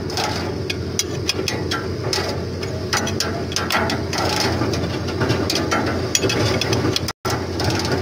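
An engine running steadily under irregular metallic clinks and taps as tools work on the air-conditioning compressor's mounting bracket to tighten its belt. The sound cuts out for an instant about seven seconds in.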